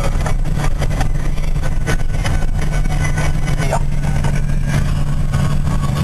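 Tractor-trailer truck's diesel engine heard from inside the cab while driving: a steady low drone, with frequent light clicks and rattles.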